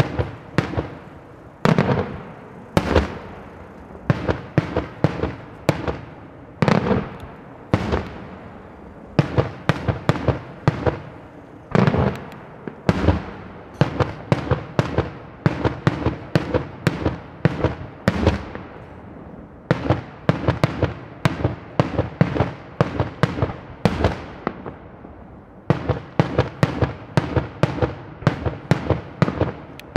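Daytime aerial fireworks shells bursting in a rapid, continuous barrage: many loud, echoing bangs fired in quick clusters.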